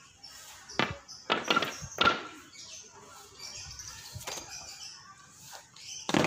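Marching drill with wooden staffs: a handful of sharp knocks and stamps as the scouts snap their staffs and feet through the drill movements and step off, with a few close together about a second and a half in and a loud one at the end.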